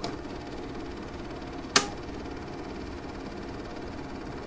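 Steady hiss and hum of the line noise on a recorded 911 phone call, with one sharp click a little under two seconds in.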